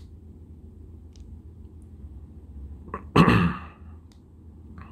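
A person's single short, loud burst of breath and voice about three seconds in, with a few faint clicks around it.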